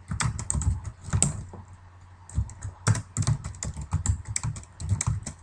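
Computer keyboard typing: quick, irregular runs of keystrokes with a short pause about two seconds in.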